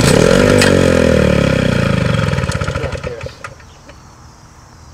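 A small gasoline push lawnmower engine is pull-started and fires at once. It runs loudly for about three seconds while its pitch falls steadily, then dies out: the mower will not keep running.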